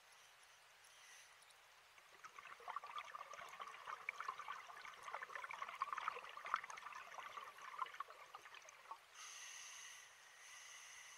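Scuba diver breathing through a regulator underwater: a long exhalation of bubbling and crackling from about two seconds in to about nine seconds, then the hiss of the next breath drawn in near the end.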